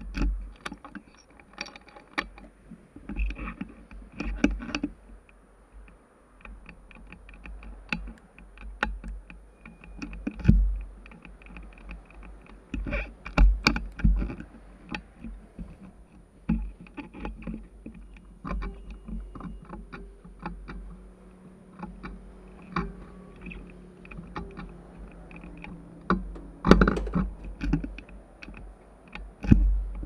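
Irregular clicks, taps and knocks from handling a 2009 Yamaha FZ1N's switches and controls as it fails to start. The engine does not run.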